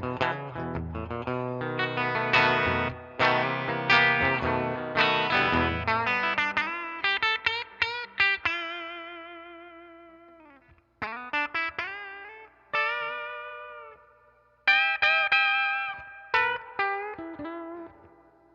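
1981 Greco Super Real EGF-1200 electric guitar played clean through a Fender Princeton blackface amp. It starts with chords over low bass notes for about six seconds, then moves to single-note lead phrases with vibrato, the notes left to ring and fade between phrases.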